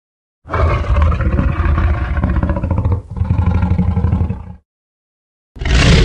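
Tyrannosaurus rex roar sound effect: a long, deep roar, a brief break, then a shorter roar that trails off. Another loud sound starts abruptly near the end.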